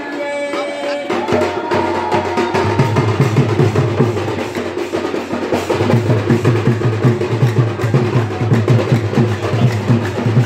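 Live folk drum ensemble: barrel drums and other stick-played drums beating a fast, dense dance rhythm. A melodic line is heard for about the first second before the drumming takes over.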